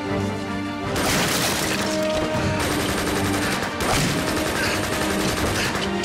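A rapid fusillade of gunfire, dense and continuous, starting about a second in, over a film score of sustained low tones.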